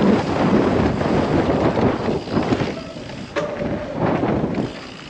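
Wind buffeting the camera microphone over the rumble and rattle of a Santa Cruz Bullit e-mountain bike's tyres and frame on a dirt singletrack. The noise is heaviest for the first three seconds, then eases, with a single sharp click.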